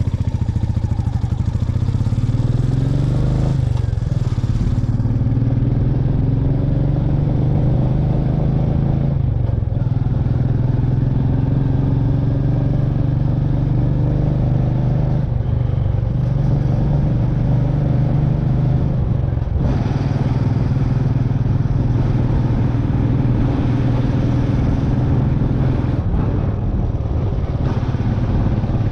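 Royal Enfield Meteor 350's single-cylinder engine running under way, pitch climbing as it accelerates, with brief dips at gear changes several times.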